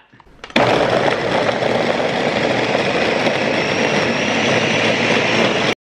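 High-speed countertop blender running, pureeing chunked Granny Smith apples with oats, dates and eggs into a thick muffin batter. It starts suddenly about half a second in, runs steadily, and stops abruptly near the end.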